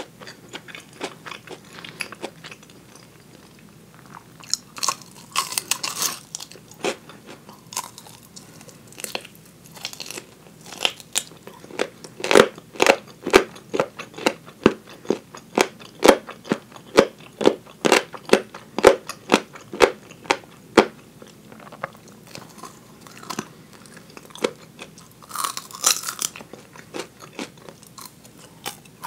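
Biting and chewing of fried 'tulip' chicken drumettes picked up close on a clip-on mic. Sparse bites at first, then a steady run of chews at about two a second through the middle, and a few short hissy bursts near the start and near the end.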